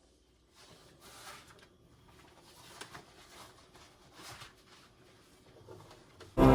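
Faint soft rustling and light handling noises, a few short swells about a second and a half apart. Near the end, background music starts abruptly and is much louder.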